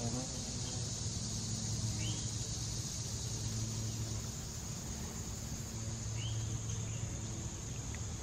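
Steady high-pitched insect chorus in summer woods, with a short bird chirp about two seconds in and another about six seconds in, over a low steady hum.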